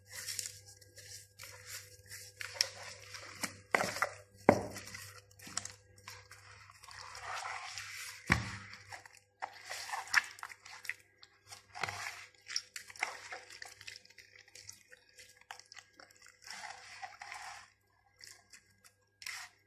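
Hand rubbing dry seasoning into raw chicken pieces in a plastic bowl: irregular wet squelching and rustling, with a few sharp knocks.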